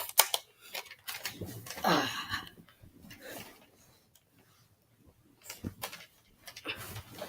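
Plastic clicks, knocks and rattles of a toy foam-dart blaster being handled, loaded and primed, with a short falling squeak about two seconds in and a sharp snap right at the end as it fires.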